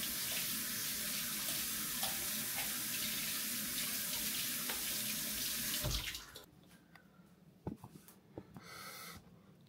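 Kitchen tap running steadily while hands are washed under it. The water is shut off about six seconds in, followed by a few light knocks.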